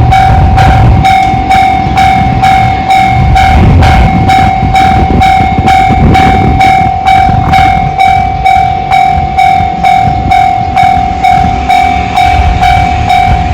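Japanese railway level-crossing alarm of the JR standard electronic type, ringing steadily at about three dings a second. Under it a train rumbles past, the rumble swelling and fading.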